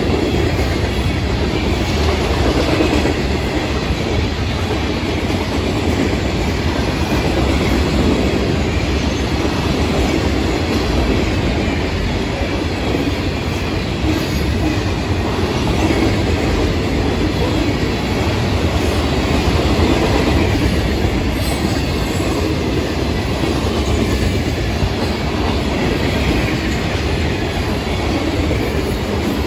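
Florida East Coast Railway rock train's hopper cars rolling past: a steady, loud rumble of steel wheels on the rails.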